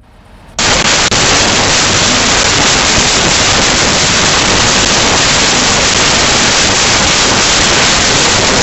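Very loud, steady static hiss like white noise, starting abruptly about half a second in, with a brief dropout about a second in.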